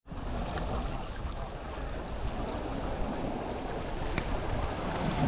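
Sea waves washing steadily against a rocky shore, with one light click about four seconds in.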